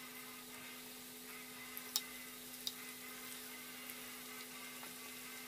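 Coated chicken pieces deep-frying in a pan of hot oil: a steady sizzle with a few sharp pops, the loudest about two seconds in. A steady low hum runs underneath.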